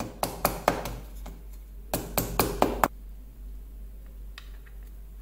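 Sharp light taps of small hard objects, about ten within three seconds in two quick runs, then only a few faint clicks.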